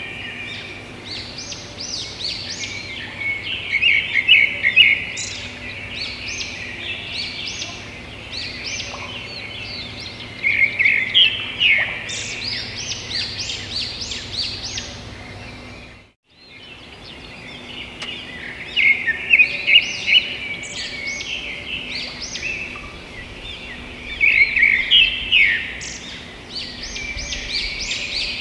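Birds chirping: dense, rapid high chirps that swell into louder bursts every few seconds. The sound drops out completely for a moment a little past the middle, then the chirping resumes.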